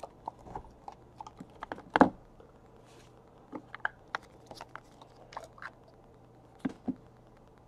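Thick trading cards being handled in the hands: a string of soft clicks, taps and scrapes as the stack is unwrapped and shuffled, with a sharper knock about two seconds in and two more near the end.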